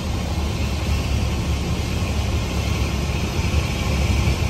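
Cessna 172S Skyhawk SP's four-cylinder Lycoming IO-360 engine and propeller droning steadily, heard inside the cabin, with rushing airflow over the airframe on the landing approach.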